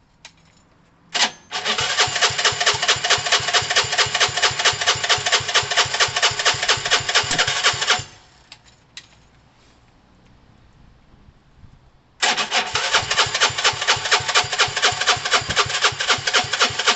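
Gilera DNA 125's electric starter cranking the engine in two long bursts of about six seconds each, with a pulsing rhythm. The engine never catches: no fuel is being pumped to the carburettor.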